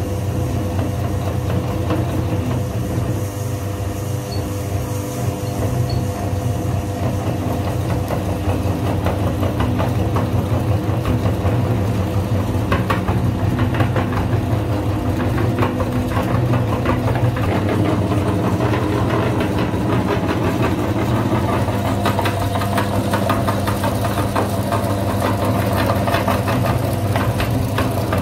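Electric meat grinder motor running steadily as it grinds pieces of soap, with bursts of crackling and crunching as the soap is forced through the cutting plate, heaviest about halfway through and near the end.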